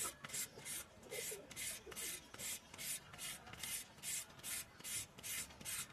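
Handheld julienne peeler shredding a raw carrot in quick, even strokes, about three a second, each a short scraping rasp.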